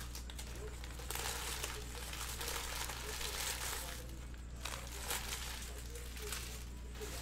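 Plastic trading-card pack wrappers being crinkled and torn open by hand, a dense crackle from about a second in to past the middle, then scattered sharper crinkles.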